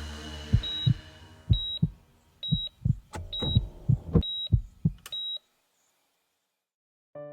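Heartbeat sound effect: low double thumps about once every 0.8 seconds, each with a short, high electronic beep like a hospital heart monitor. Both stop suddenly about five seconds in.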